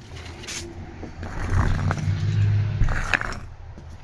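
A door dragging and scraping open for about a second and a half, ending in a sharp knock.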